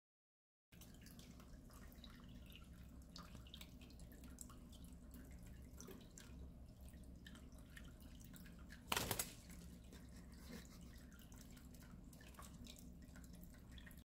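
Faint dripping and trickling of water in a small homemade bird fountain fed by a 3-volt water pump, over a low steady hum, with scattered small ticks and one sharper click a little past halfway.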